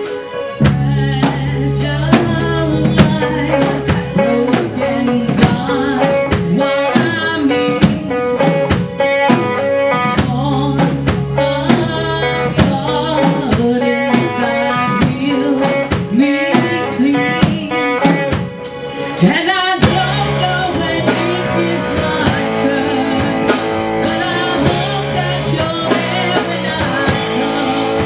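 Live rock band playing a song: drum kit, electric guitar and keyboard, with a woman singing lead. About eighteen seconds in the band drops back briefly, then comes back in fuller and brighter.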